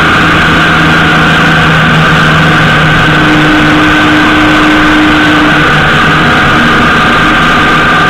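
Honda GL1800 Gold Wing's flat-six engine running steadily at road speed, heard under loud, even wind and road noise on a bike-mounted camera's microphone.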